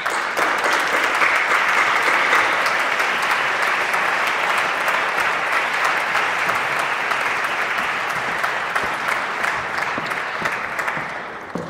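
Theatre audience applauding steadily, dying away near the end.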